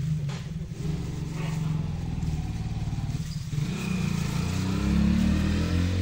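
A motor vehicle engine running steadily, then revving higher from about four seconds in.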